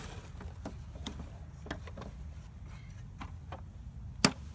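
A child's ride-on toy backhoe being worked in sand: irregular light clicks and knocks from its plastic digging arm and levers, with one sharp, louder knock about four seconds in.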